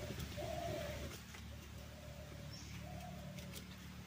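A bird calling: a series of short, low, even notes, about one a second.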